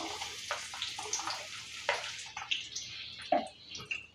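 Chopped red onions sizzling as they drop into hot oil in a kadai. A strong hiss dies down after about two seconds, leaving scattered pops and crackles.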